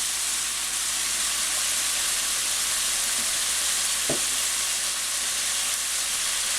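Ground pork and Napa cabbage filling sizzling steadily in oil in a fry pan, with a single light knock about four seconds in.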